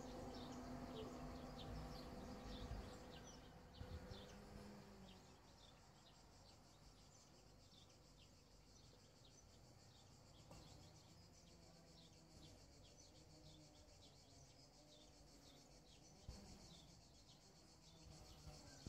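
Near silence with faint insects buzzing steadily and a few short bird chirps. A low distant engine hum fades away over the first few seconds.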